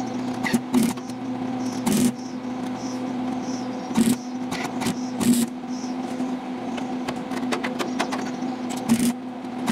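Lincoln Electric Handy MIG wire-feed welder welding a steel patch panel onto a rusted Model T cowl: a steady electrical buzz with crackling arc noise and a few sudden sharp cracks, several seconds apart.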